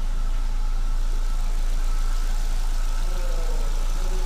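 Fiat Stilo 1.8 8v four-cylinder engine idling steadily, left running with the radiator cap off to bleed air pockets out of the cooling system.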